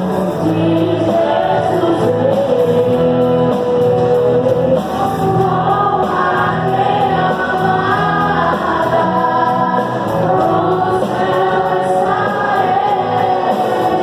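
Gospel worship music: a choir singing with instrumental accompaniment.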